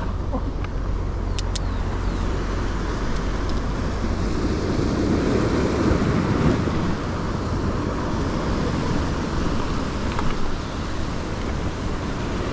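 Ocean surf washing over rocks, with wind rumbling on the microphone: a steady rushing noise that swells louder around the middle.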